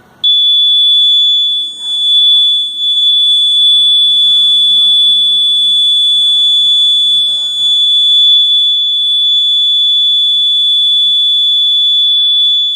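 Fire alarm sounding a single loud, steady, high-pitched tone that switches on abruptly just after the start and holds without a break.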